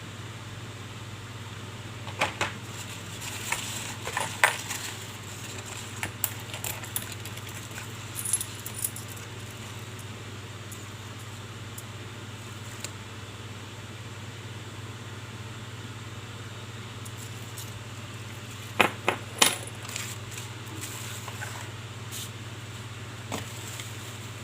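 Hot Wheels blister packs and die-cast cars being handled: scattered light clicks and crackles of plastic and metal in small clusters, the loudest a quick run of clicks about three-quarters of the way through, over a steady low hum.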